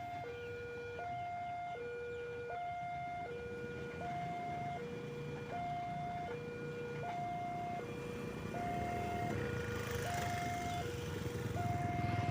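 Railway level-crossing warning alarm sounding a steady two-tone hi-lo signal, each tone held about three-quarters of a second. A low rumble grows louder toward the end.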